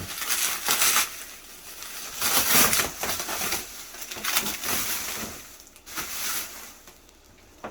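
Plastic packaging being handled, crinkling and rustling in several irregular bursts.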